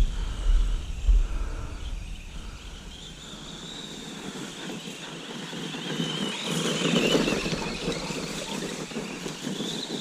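Arrma Granite BLX RC truck's brushless motor whining, its pitch rising and falling as the truck speeds up and slows. It is loudest about seven seconds in. Wind rumbles on the microphone in the first second or so.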